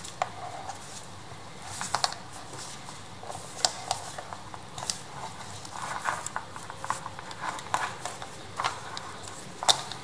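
Scattered light clicks and taps at irregular intervals over a faint steady hiss, with a busier run around the middle and one sharper tap near the end.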